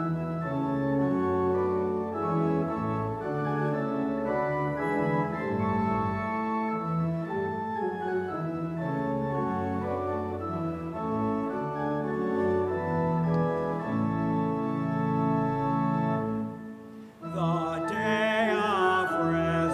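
Church organ playing the closing music of the Mass, sustained chords changing one after another. About 17 seconds in the sound drops briefly, then a new passage starts with a wavering vibrato.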